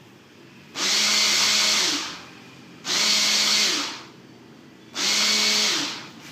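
Electric hand blender on a chopper bowl, pulsed three times to blend mango for a smoothie; each burst runs about a second, and the motor's pitch falls as it spins down after each one.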